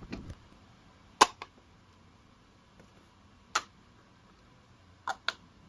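A handful of short, sharp clicks at irregular intervals, the loudest about three and a half seconds in and a quick pair near the end.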